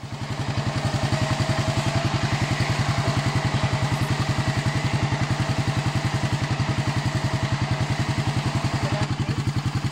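ATV engine idling steadily, with an even, fast throb.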